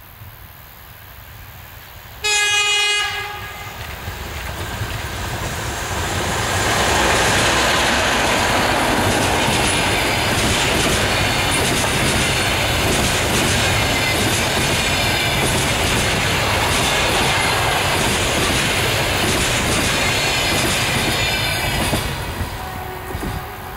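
An EP2K electric locomotive sounds one short horn blast about two seconds in. The passenger train then passes, its wheel-on-rail noise rising as it nears, holding loud and steady while the carriages go by, and fading near the end as the last car clears.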